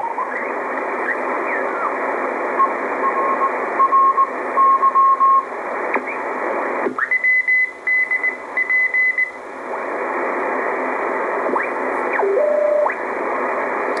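Shortwave receiver in CW mode being tuned across the 30-metre amateur band: steady band hiss with keyed Morse code tones coming and going as the dial turns. One keyed tone a few seconds in, a higher-pitched one in the middle, and a brief lower tone near the end.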